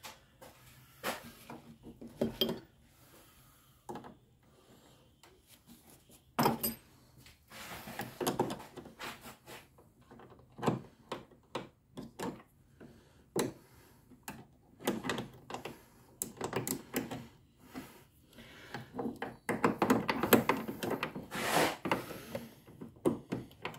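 Ratchet wrench clicking in short runs on the bolts of a car's bonnet strut mount, mixed with clinks and knocks of metal tools and parts being handled. The clicking is busiest near the end.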